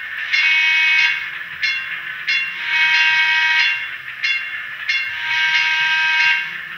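Horn effect from the sound decoder in a Bachmann Spectrum On30 model trolley, played through its small onboard speaker. It sounds in a repeating pattern of one long blast and two short ones, each starting and stopping sharply. A faint steady hum runs underneath as the model runs on the track.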